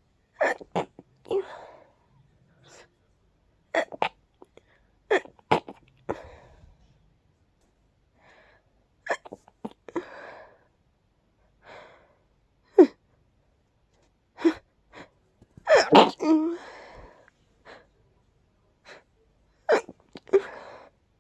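A person's pollen-allergy sneezing fit: a long run of sharp sneezes, several in quick pairs, with breathy noise after some of them. The longest sneeze comes about three-quarters of the way through.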